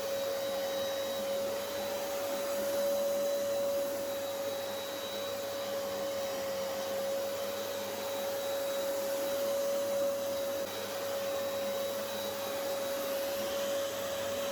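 Hoover upright carpet cleaning machine running steadily as it washes a carpet: a steady motor whine over the rush of its suction.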